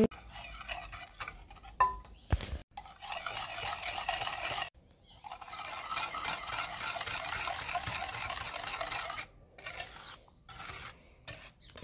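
Wire whisk beating eggs, sugar and oil in a glazed ceramic bowl, the wires swishing through the liquid and scraping the bowl, to dissolve the sugar. A couple of knocks come about two seconds in, then a steady run of whisking, with shorter strokes near the end.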